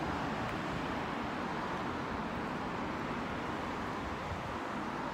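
Steady outdoor background noise: an even low rumble with a hiss above it, like distant road traffic, with no distinct events.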